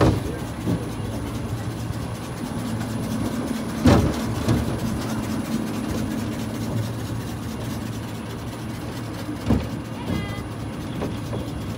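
Amusement-park monorail car running along its raised rail: a steady low running noise and hum, with occasional sharp clunks from the car and track, the loudest about four seconds in and again near nine and a half seconds.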